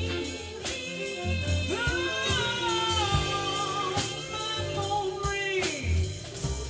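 Live soul band playing a slow ballad: drum kit, bass, guitars and keyboards, with a long melodic fill from about two seconds in, after a last sung word at the start.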